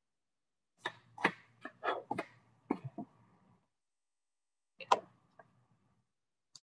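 Drawing tools being handled on a desk: a quick run of short scratches and light clicks, then one sharper click, the loudest, and a faint tick near the end.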